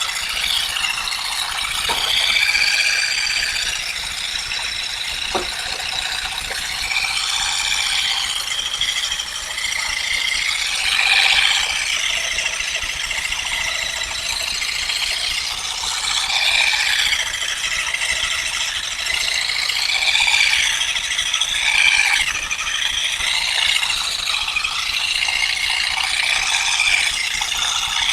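Continuous fast mechanical rattling with a wavering high whine, swelling in loudness every few seconds.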